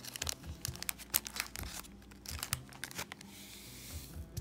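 Crinkling of a small plastic packet and many light plastic clicks and taps as candy-kit soup powder is tipped into a little plastic tray and stirred in, with a brief soft hiss about three seconds in.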